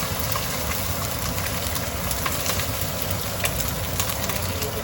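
Sliced onion sizzling and crackling in hot olive oil in a pot, over the steady hum of a kitchen exhaust fan.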